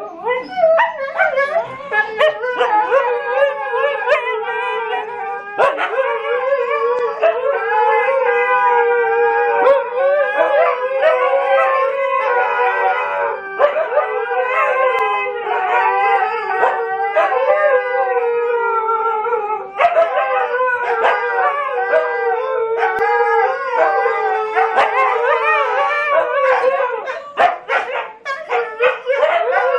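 Several Siberian huskies howling together in overlapping, wavering howls that rise and fall in pitch, with short yips and barks mixed in.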